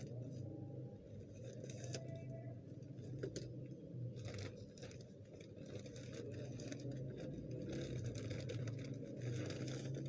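Plastic courier mailer bag rustling and crinkling as it is handled and opened by hand, in short irregular crackles, over a steady low hum.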